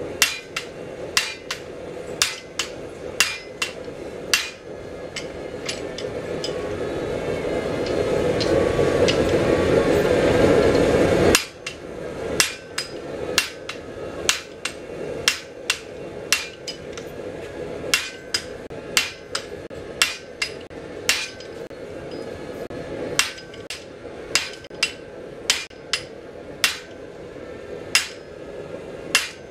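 Hand hammer striking the top die of a guillotine tool on an anvil, forging red-hot steel bar: sharp, ringing blows at about one a second. Near the middle a rushing noise grows steadily louder and stops abruptly, after which the blows come a little faster.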